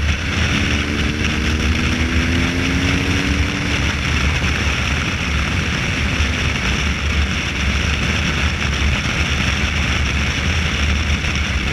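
BMW R1200GS liquid-cooled boxer twin with an Akrapovic exhaust, pulling hard in sixth gear as the throttle is rolled on. The engine note rises over the first few seconds under heavy wind rush.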